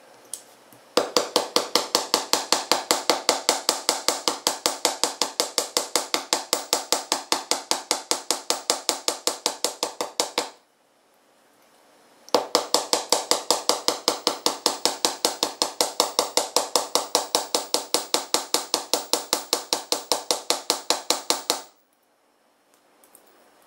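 Small flat-faced jeweller's hammer striking copper wire on a metal bench anvil, flattening the wire. Rapid, even blows, several a second, in two runs of about nine seconds each with a short pause between.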